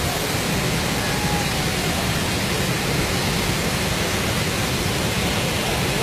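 Large waterfall in full flood: a steady, unbroken rush of falling water.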